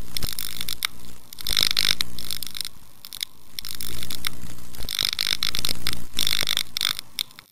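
Sound effects for an animated title card: repeated bursts of crackling noise with sharp clicks over a steady low hum, fading out near the end.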